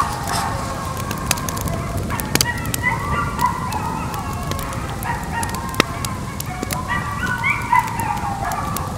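A pack of coyotes howling and yipping together, many wavering calls rising and falling over one another, with scattered sharp crackling clicks.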